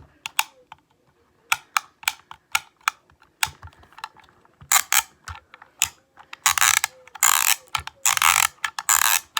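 Plastic fidget cube being worked by hand: a series of separate sharp clicks, then from about six seconds in several half-second runs of rapid clicking, like a ratchet wheel being spun.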